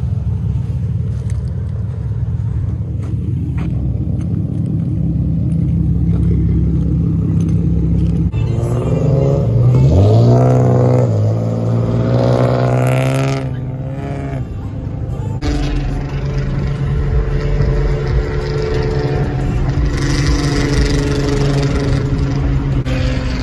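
Nissan 370Z V6 engines under way: a steady low engine drone, then, about a third of the way in, hard acceleration with the engine pitch climbing steeply through the gears, settling back into a steady engine and road drone heard from inside a following car.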